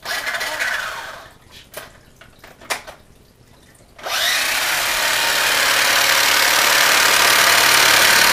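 Electric motor and gears of a 1983 Radio Shack Tiger RC buggy running on a two-cell LiPo pack, revved with the wheels spinning in the air. A short whirr opens, followed by a couple of clicks. From about four seconds in the drive runs flat out in a steady loud whirr.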